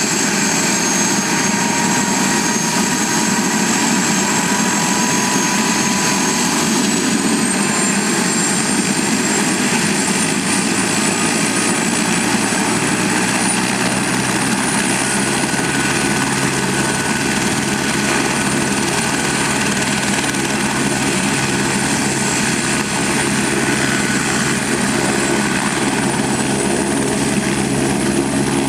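Medical helicopter's turbine engine and rotor running on the ground before takeoff: a high turbine whine steps up in pitch about a quarter of the way in, and the low rotor beat grows stronger through the second half.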